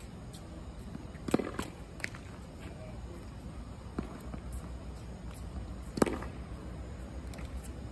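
A few sharp knocks of tennis balls bouncing on a hard court and being hit between points, the loudest about a second and a half in and about six seconds in, over a steady low hum.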